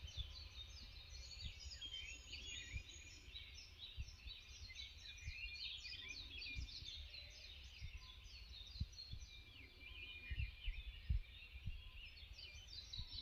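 A dense chorus of many small birds chirping and trilling, with a low rumble and scattered soft thumps underneath.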